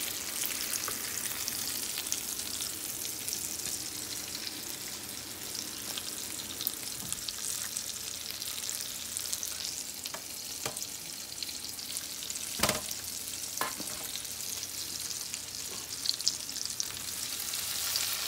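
Breaded chicken cordon bleu frying in hot cooking oil in a pan, a steady sizzle. A few sharp knocks come in the second half.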